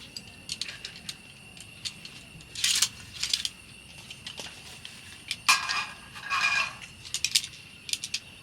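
Small metal objects clinking and clattering in a string of short, sharp knocks, a few of them ringing briefly. A steady high-pitched tone runs underneath.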